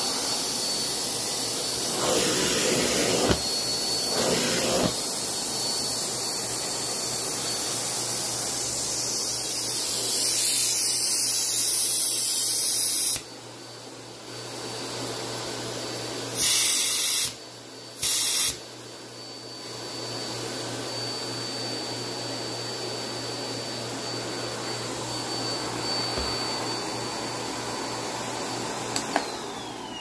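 Miele Complete C3 Powerline canister vacuum running on its max setting, a steady rush of air with a high whine. About 13 seconds in the sound drops sharply, then comes back in two brief loud surges. Near the end the motor is switched off and its whine falls away.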